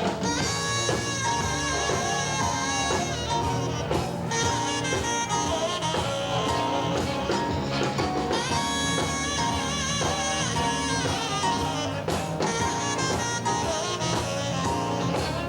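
A band playing music.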